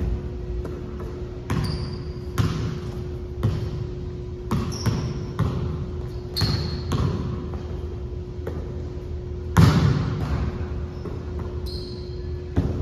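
A basketball bouncing and being caught on a gym floor, about a dozen irregular echoing thuds with the loudest about two-thirds of the way through, a few short sneaker squeaks, and a steady hum underneath.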